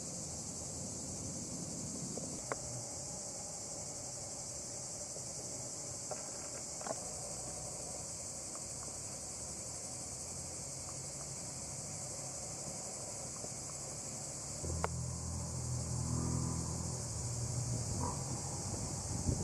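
Steady high-pitched chorus of insects. A few sharp knocks stand out over it, and a low rumble rises from about fifteen seconds in.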